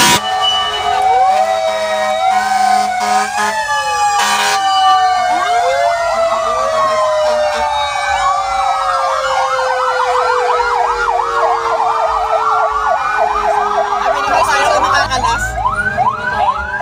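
Many fire truck sirens sounding at once, their wails and yelps overlapping, with one long tone sliding slowly down in pitch. A fast yelp of about three rising sweeps a second starts near the end. A short burst of noise cuts through about four seconds in.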